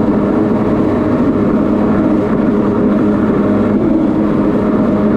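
Two-stroke stand-up jet ski engine running steadily at speed under way, with water rushing and spraying off the hull.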